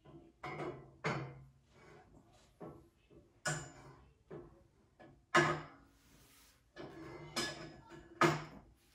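Steel square tubing knocking and scraping against the steel welding fixture table and frame as it is fitted into place, each knock ringing briefly. The two loudest knocks fall about halfway through and near the end.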